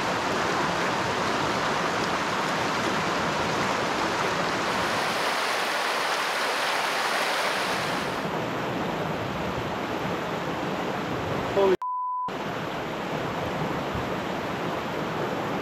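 Fast mountain creek rushing over rocks, a steady wash of water noise. About twelve seconds in, the sound cuts out briefly.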